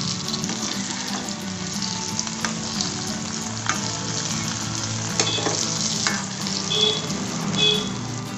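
Puran-stuffed dhonde dough balls deep-frying in hot oil in a metal kadhai, sizzling steadily. A slotted metal spatula stirs them and lifts out the golden-brown ones, with scattered clicks and scrapes.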